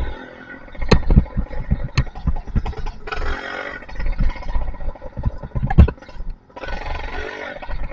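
Two-stroke engine with a 52 mm single-ring piston and a Master Blaster muffler running on the move, revving up in two short bursts over a low rumble, with rattling and several sharp knocks.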